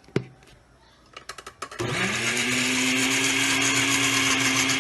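A few light clicks, then about two seconds in an electric blender motor starts, its pitch rising quickly and settling to a steady run as it blends sliced mangoes and sugar into a puree.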